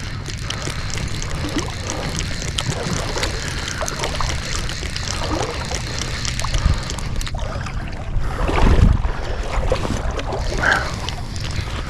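River water running steadily, with wind buffeting the microphone and small scattered ticks and rustles. A louder, deeper gust of wind noise comes about nine seconds in.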